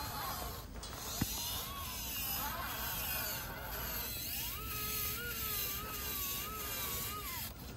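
Axial SCX10 Pro rock crawler's Fusion Pro 2300kv brushless motor and geared drivetrain whining as it crawls up rock, the pitch rising and falling with the throttle. A single sharp click about a second in.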